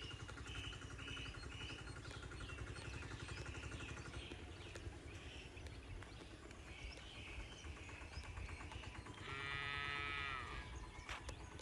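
Birds chirping steadily over a low rumbling background, then a cow moos once, for about a second and a half, near the end.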